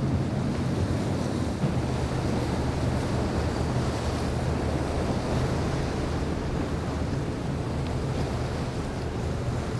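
Surf and choppy water washing against the jetty, with wind buffeting the microphone. Under it runs a steady low drone of powerboat engines running at speed.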